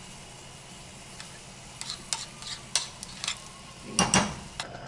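Cooking sounds: scattered light clicks and taps of utensils, then about four seconds in a brief loud burst of sizzling and crinkling as meat is laid on a hot round griddle plate and its sheet is peeled away.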